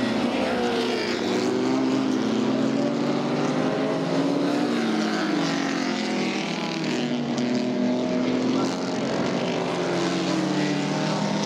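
Engines of several historic open-wheel racing cars running at once, their overlapping notes rising and falling as they rev, shift and pass.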